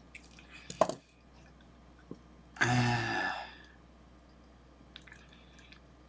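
Pliers clicking sharply against a banana plug's metal lug as it is bent. About midway there is a strained vocal grunt of effort lasting about a second, and a few faint ticks of the tools follow near the end.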